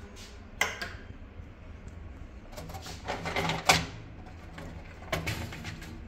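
Light clicks and rattling knocks in three short clusters, about half a second, three seconds and five seconds in. They are the handling noise of a plastic pet carrier and wire cage.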